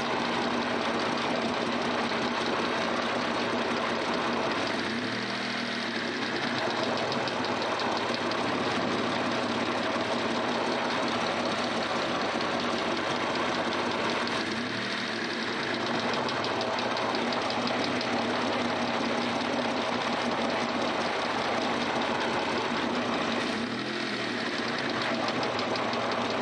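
Dodge Stealth / Mitsubishi 3000GT VR-4 3.0-litre V6 engine idling with a fast, even ticking over its running sound, which the owner asks may be lifter tick. The engine note dips briefly three times, about nine seconds apart.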